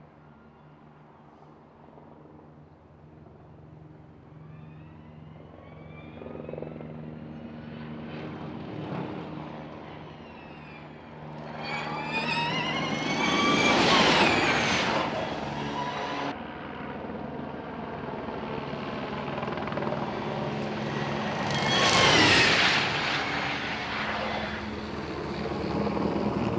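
Volkswagen ID.R electric race car passing at speed, its twin electric motors giving a high whine that rises in pitch as it comes closer. There are two loud pass-bys, about 14 and 22 seconds in, over a steady low hum.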